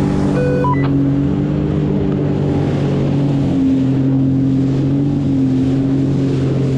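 Jet ski engine running steadily, its pitch stepping down slightly a little over halfway through. A short run of stepped electronic beeps sounds about half a second in.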